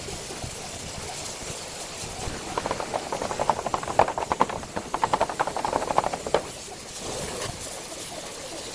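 A steady hiss, with bursts of rapid tapping or rattling from about two and a half seconds in until about six and a half seconds in.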